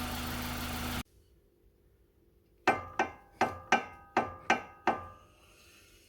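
A car engine idling for about a second, cut off abruptly. Then eight quick sharp strikes, about three a second, each with a short ringing tone.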